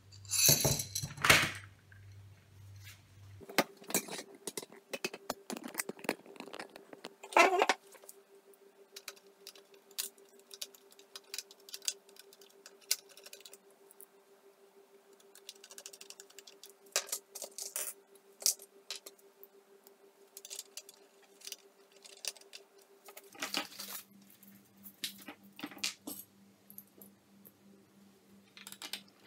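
Small metal and plastic parts of an opened vintage tuner clicking and rattling as they are handled, in irregular bursts, the loudest about a second in and again about seven seconds in, over a faint steady hum.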